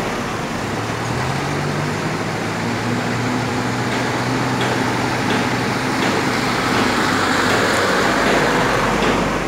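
Mitsubishi light dump truck's diesel engine running as the truck pulls away and drives past, its note rising about a second in and then holding steady.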